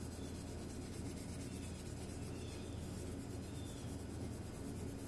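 Quick, repeated scratchy strokes of a red abrasive pad scrubbing the rust off a small steel screw head, over a steady low hum.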